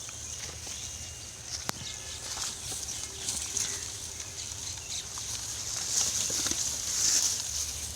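Livestock pen noise, plausibly pigs moving about: a steady high hiss that grows louder near the end, over a low hum, with scattered sharp clicks and knocks, one standing out about two seconds in.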